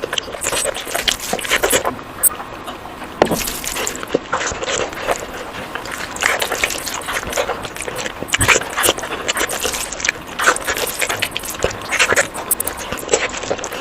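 Close-miked eating sounds: wet chewing, lip smacking and mouth clicks, coming in quick irregular bursts.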